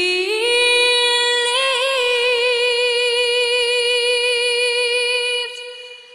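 A singer holds one long note in a song, sliding up into it at the start, wavering slightly about a second and a half in, and fading out near the end.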